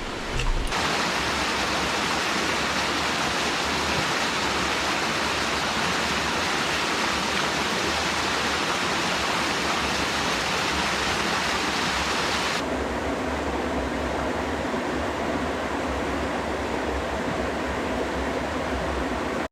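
Waterfall, a steady rush of falling water. About two-thirds of the way through it changes suddenly to a slightly quieter, duller rush.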